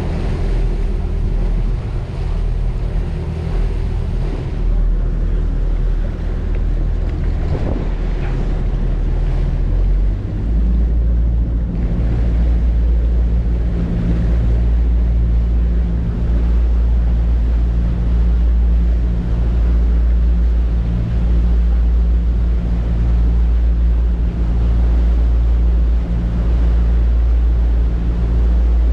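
Twin MAN V8 marine diesels driving Marine Jet Power waterjets, running steadily at speed, mixed with the rush of the wake water and wind on the microphone. About ten seconds in, the low engine drone becomes louder and steadier.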